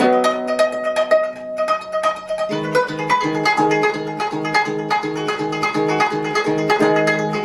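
Gayageum, the Korean plucked zither, played solo: ringing plucked notes, then from about two and a half seconds in a quick, even pattern of repeated low plucked notes.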